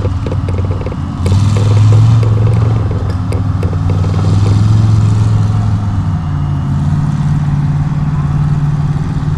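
Chevy mega truck's engine running hard as it drives through a mud pit, its note held steady and then stepping up to a higher pitch about six seconds in.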